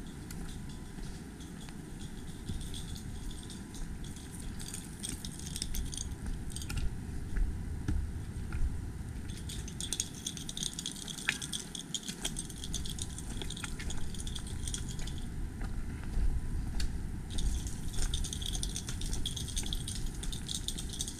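Walking through brush: leaves and branches rustle in patches of a few seconds, with footsteps and small snaps.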